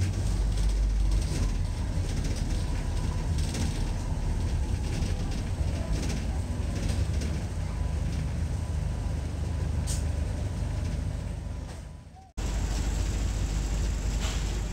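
Steady low rumble of a double-decker bus's engine and road noise heard from inside the cabin, with a faint steady whine. It fades away and cuts off abruptly about twelve seconds in, then starts again at the same level.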